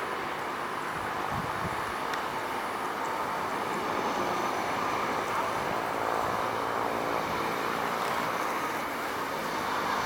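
Steady, even engine noise of a distant Airbus A330-300 jet airliner.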